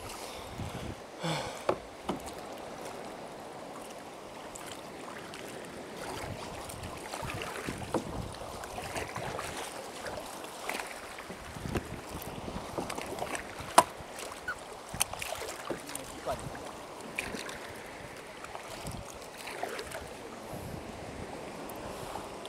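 Double-bladed kayak paddles dipping and splashing in the sea beside a tandem sit-on-top kayak, with water lapping at the hull and occasional sharp clicks and knocks, the loudest about two-thirds of the way through.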